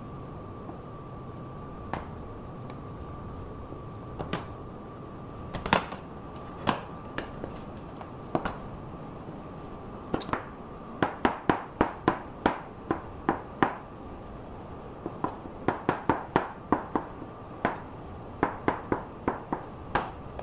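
Kitchen knife striking a plastic cutting board while slicing tofu and then a shiitake mushroom thinly: scattered single chops at first, then runs of quick strokes, about three or four a second. A faint steady high tone hums underneath.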